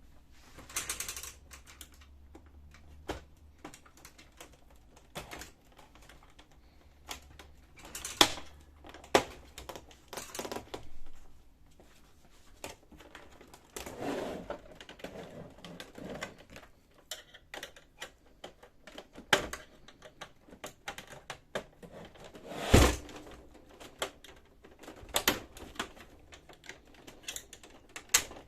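Hard plastic printer casing being handled: scattered clicks, snaps and knocks as the side cover of a Brother DCP-7055 laser printer is worked off its clips, with a scraping slide around the middle and a few sharper knocks, the loudest about three quarters through.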